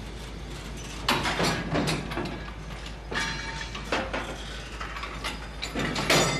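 Metal clanking and clinking from shunting work on railway freight wagons: a series of separate bangs with a metallic ring, the loudest near the end.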